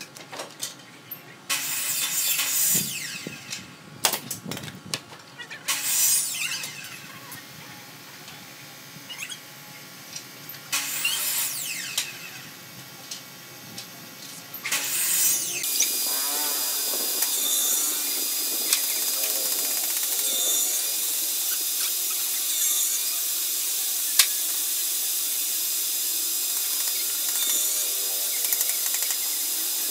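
A handheld power tool runs in several short bursts, spinning up and down, among workshop clatter. About halfway through it gives way abruptly to a steady hiss.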